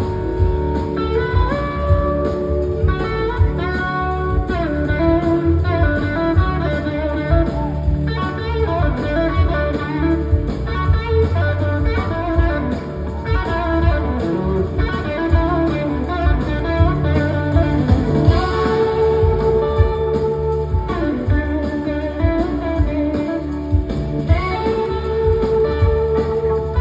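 Amplified electric guitar solo on a red Gibson SG, notes gliding up and down in pitch as slide guitar, over drums and bass in a live blues-rock band.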